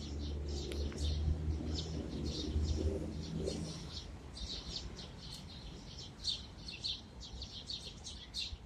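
A flock of small birds chirping at a feeder: many short, overlapping chirps with no let-up. A low rumble underneath fades out about halfway through.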